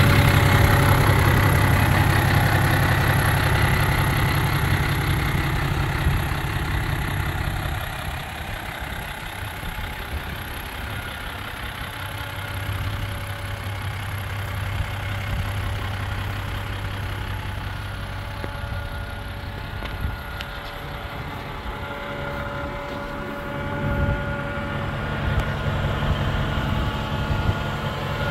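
New Holland 7840 tractor's six-cylinder diesel engine idling steadily. It is loudest in the first several seconds and a little quieter after about eight seconds.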